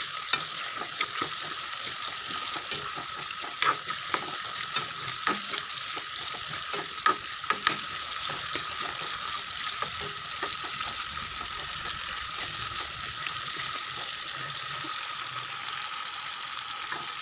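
Tomato and onion sizzling in hot oil in a wok, a steady frying hiss. A spatula scrapes and knocks against the pan as it stirs, the knocks coming often in the first half and fewer later.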